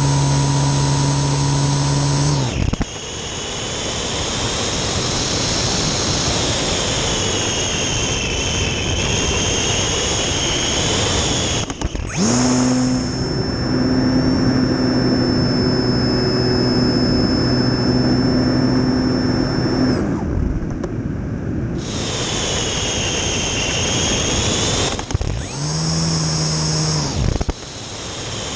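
Onboard sound of an RC airplane's motor and propeller in flight, with wind rushing past the airframe. It runs at power, is throttled back about three seconds in to a softer high whine under the wind, and comes up to power again around twelve seconds. It eases off near twenty seconds and briefly powers up once more a few seconds before the end.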